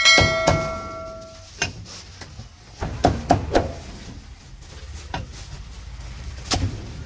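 Meat cleaver chopping roasted duck on a thick wooden chopping block: a series of heavy chops at irregular spacing. The first strike leaves a metallic ring that dies away over about a second and a half.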